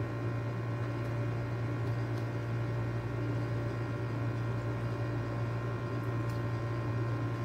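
Steady low electrical hum with an even background hiss: room tone, with no sound from the drops falling into the water.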